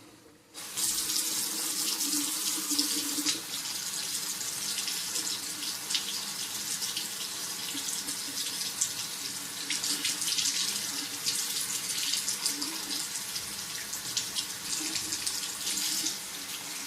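Tap water running into a sink, starting suddenly just under a second in and then running steadily with an uneven splashing hiss.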